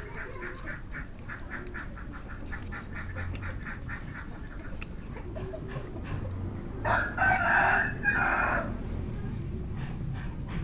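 A rooster crows once, about seven seconds in, the call lasting nearly two seconds. Rapid short ticks come before it in the first few seconds.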